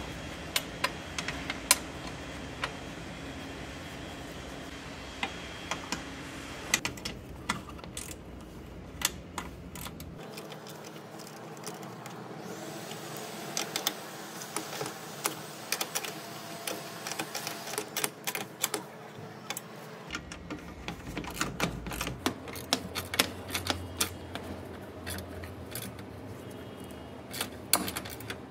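Irregular metallic clicks and taps of a hand tool working on the battery hold-down clamp bolts as they are fitted and tightened, coming thicker and faster in the last several seconds.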